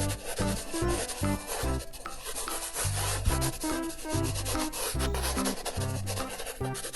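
Steady rubbing scratch of colouring on paper, over background music with a repeating bass line.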